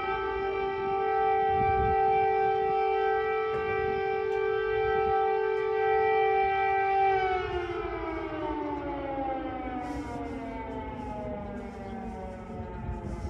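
Civil defense air-raid siren sounding a steady high wail, then winding down in a slow falling glide from about seven seconds in.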